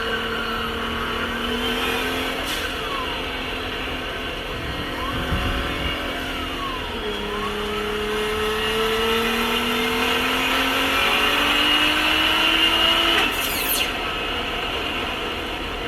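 Turbocharged Nissan GT-R engine, fitted with a Garrett G25-660 turbo, pulling under acceleration. Its pitch climbs steadily, drops with a gear change about seven seconds in, then climbs again until another drop with a short rushing sweep near the end.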